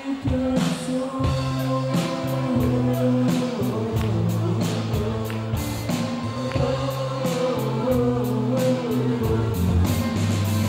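Rock band playing live: bass guitar holding low notes that change every second or so, drums with regular cymbal hits, and a sung vocal line over the top.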